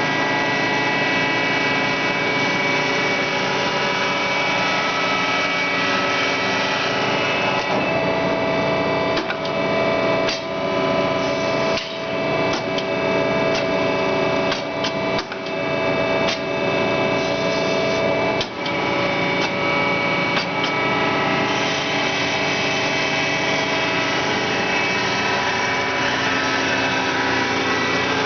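Marvel 81A9 vertical band saw running with a steady machine hum and whine. Through the middle stretch a series of sharp clicks and knocks sound over it, with a few brief dips in level.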